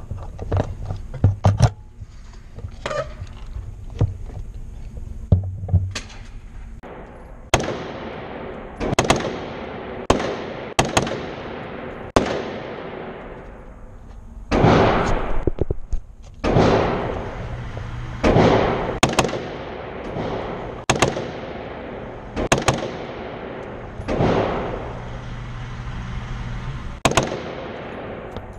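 AR-15 rifle with a binary trigger firing semi-auto rapid fire: sharp shots, some in close pairs and quick strings, each followed by a long echoing tail in an indoor range. Fainter short cracks sound through the first several seconds.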